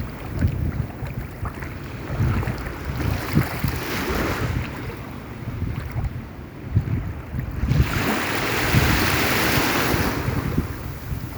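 Sea waves washing in, with wind rumbling on the microphone; a louder rush of surf comes about eight seconds in.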